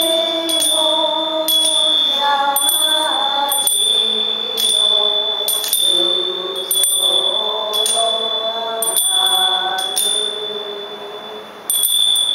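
Goeika, Japanese Buddhist hymn singing: a small group of women's voices in a slow, gliding unison melody, with hand-held bells struck about once a second and ringing on between strikes. The singing tails off near the end, followed by one more bell strike.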